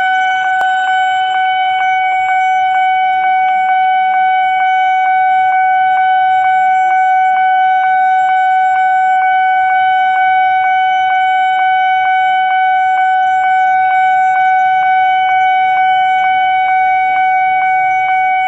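Railway level-crossing warning alarm: a steady electronic tone pulsing about two and a half times a second, sounding while the crossing barriers close, the signal that a train is approaching.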